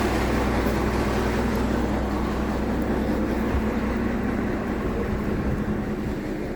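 Vehicle engine running steadily with a low hum, getting a little quieter near the end.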